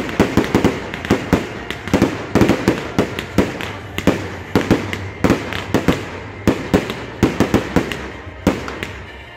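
Fireworks display: aerial shells launching and bursting in a rapid, irregular run of sharp bangs, about three a second.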